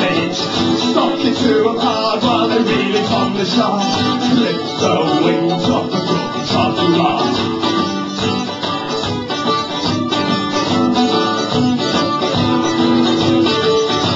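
Live acoustic band playing: strummed acoustic guitar and a second plucked string instrument, with a held melody line carried over them.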